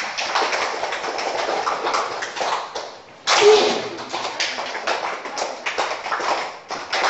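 A group of people clapping together to imitate fireworks: a dense round of claps dies away about three seconds in, then a sudden loud fresh burst of clapping follows and slowly thins out.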